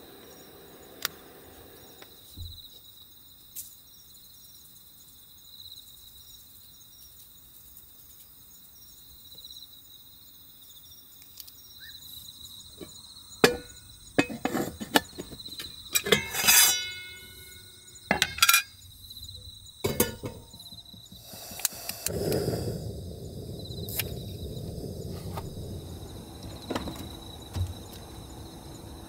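Crickets chirping steadily throughout, with a run of metal clinks and knocks midway as cookware and a camp stove are handled. About three-quarters of the way in, a gas burner under a wok is lit and keeps burning with a steady low rush.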